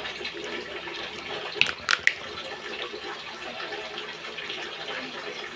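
Cooked crab being eaten by hand: shell cracking and being pulled apart, with eating sounds, a few sharp cracks about two seconds in. A steady hiss runs underneath.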